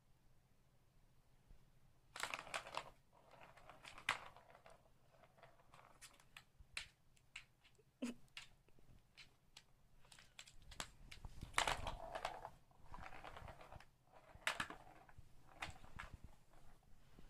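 Light-up plastic ball rattling and rolling inside the tubes of a plastic cat-toy circuit track, with knocks and scrapes on the plastic as a cat bats at it. The clatter comes in irregular bursts, loudest near the middle and again later on.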